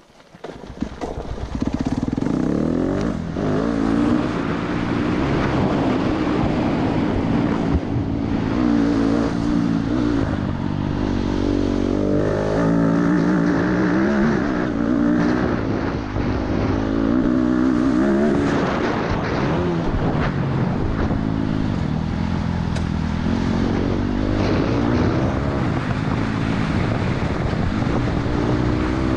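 Yamaha YZ250F four-stroke single-cylinder dirt bike engine being ridden hard, starting about a second in, its pitch climbing and dropping again and again with throttle and gear changes.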